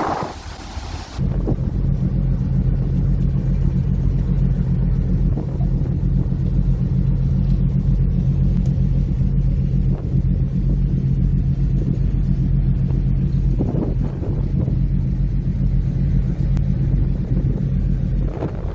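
Steady low drone of the ferry Diagoras's engines, a deep even hum that starts abruptly about a second in and stops just before the end.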